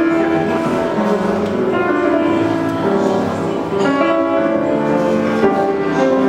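An upright piano being played: a slow melodic piece with held notes and chords.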